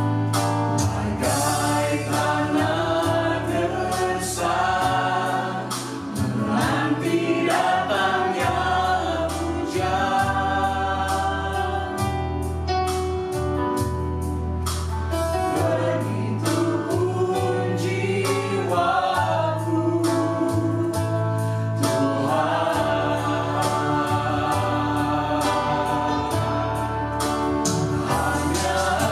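Christian praise and worship song sung by a small mixed group of men's and women's voices in harmony, accompanied by electric keyboard.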